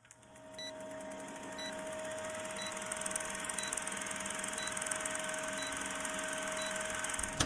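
Steady electronic hum and hiss that fades in, with a short high beep about once a second.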